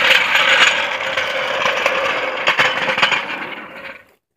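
Hydraulic floor jack being let down under the weight of a pickup truck, its release valve giving a steady hiss with a couple of sharp clicks about two and a half seconds in. The hiss fades out just before the end.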